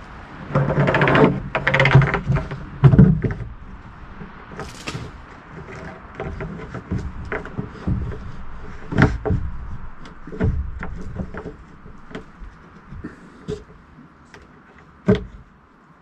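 A flexible plastic log-skidding cone being wrestled onto the rough bark end of a log: scraping, flexing and rustling plastic, loudest in the first few seconds, with a few sharp knocks scattered through.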